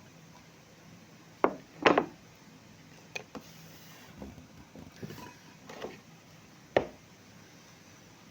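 Tableware being handled during a meal: sharp knocks and clatters about a second and a half in, just before two seconds and again near seven seconds, with softer noises between.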